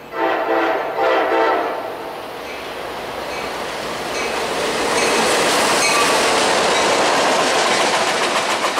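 Diesel locomotive horn sounding two blasts of a multi-note chord, followed by the rising rumble and clatter of a CSX freight train coming past.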